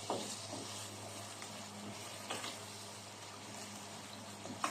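Sweet-and-sour sauce with carrots and capsicum simmering in a pan: a faint, steady bubbling sizzle, with a few light taps and a low steady hum beneath.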